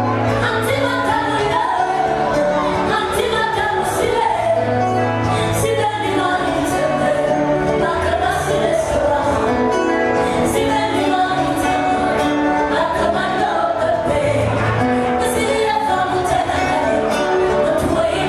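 A woman singing bikutsi into a microphone over upbeat dance music with a steady percussive beat and a held bass line.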